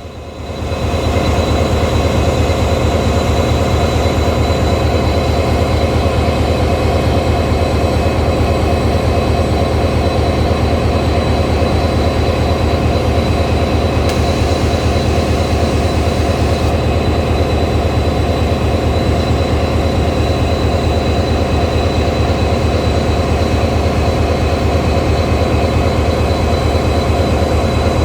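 Indian Railways WDG4 (EMD GT46MAC) locomotive's 16-cylinder two-stroke diesel engine running with a steady, deep hum and a thin high whine over it. The sound fades in over the first second or so and then holds unchanged.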